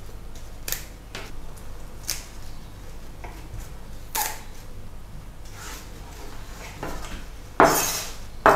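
A few scattered light clicks and taps on a wooden cutting board, then near the end a louder, rough burst as a chef's knife cuts through a bunch of fresh parsley on the board.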